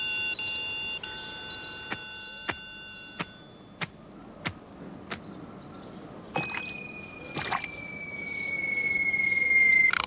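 Cartoon sound effects: a held electronic chord of several steady tones for about three and a half seconds, with sharp clicks about every two-thirds of a second. From about six seconds a long whistle slides slowly down in pitch, growing louder.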